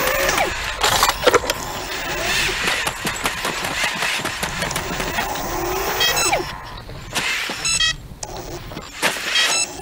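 Robot motors whirring, with a few sharp knocks about a second in. From about the middle on come short bursts of rapid electronic beeping.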